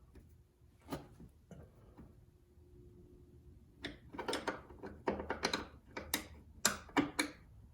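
A few lone clicks, then a quick irregular run of sharp clicks and light knocks lasting about three seconds: small hard objects being handled.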